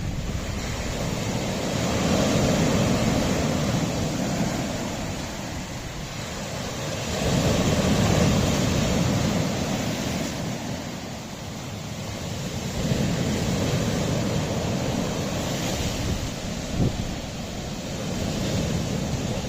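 Sea waves washing against a rocky shore, surging in and drawing back about every five or six seconds.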